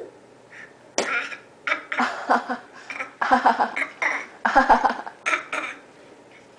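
A baby's fake cough: a string of about ten short, forced coughs, put on on purpose rather than from illness.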